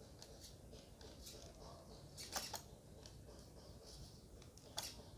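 Low room noise with a few faint, sharp clicks: a quick double click about two seconds in and another near the end.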